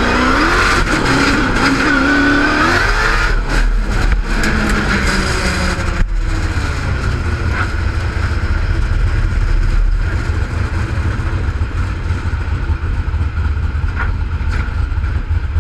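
Car engine revving hard during an autocross run, its pitch rising and falling over the first few seconds as the car accelerates and lifts, then pulling steadily with a heavy low rumble.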